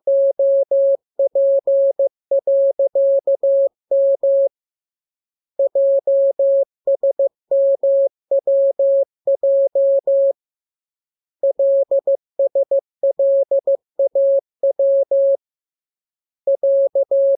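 Morse code practice tone: a single steady beep keyed on and off in dots and dashes, sent in runs of characters with pauses of about a second between runs.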